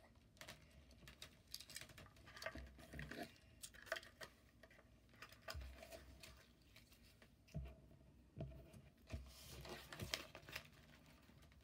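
Faint, sporadic handling noise: soft rustles and light clicks from a die-cast Matchbox toy car and its card packaging being handled on a tabletop, with a few dull bumps in the second half.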